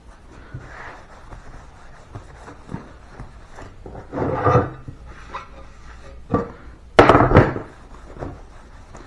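A walnut board being handled on a workbench: scattered knocks and rubbing, with a louder scrape about four seconds in and a louder double knock-and-scrape about seven seconds in.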